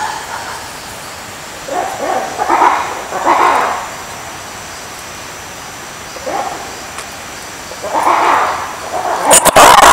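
Lemur calls: a handful of short pitched calls spaced a few seconds apart, becoming louder and quicker near the end.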